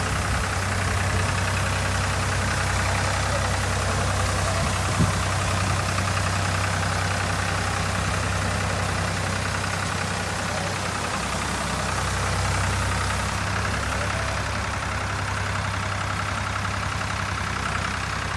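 Tractor engine running steadily as the high-clearance boom-sprayer tractor drives along, with a steady hiss over it. A single sharp knock about five seconds in.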